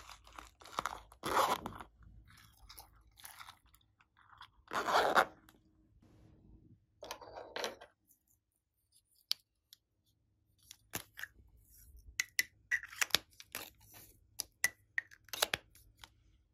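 Small plastic slime containers being handled and opened: crinkly peeling and rustling bursts, then a quick run of sharp plastic clicks and snaps with a few short squeaks in the last few seconds.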